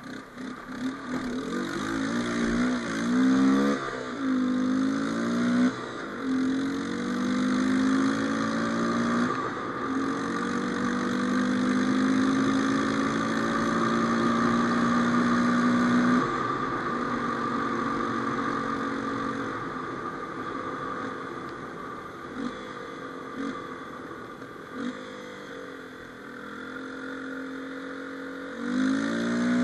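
A 250 ATV engine accelerating and easing off. The revs climb and drop twice in the first few seconds, then rise in one long steady pull for about ten seconds until the throttle is suddenly let off. After running lower and quieter for a while, the engine revs up sharply again near the end.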